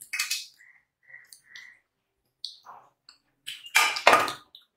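Steel tableware clinking and scraping during a meal: a few short, ringing clinks in the first two seconds, then a louder clatter about four seconds in.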